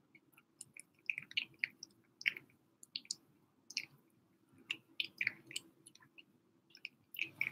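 Kitten eating wet cat food greedily from a bowl: quick, irregular wet smacks and chewing, starting about a second in.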